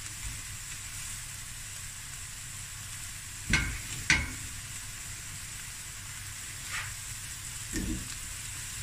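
Seasoned chicken pieces sizzling faintly in a dry stainless steel frying pan, over a steady hiss. Sweet potato chunks are set down into the pan by hand: two sharp knocks half a second apart a little past three seconds in, and two softer ones near the end.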